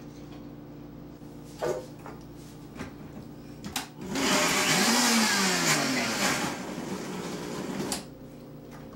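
Countertop blender chopping onion pieces: a few short knocks, then the motor runs for about four seconds from about halfway in, easing slightly as the onion breaks down, and cuts off.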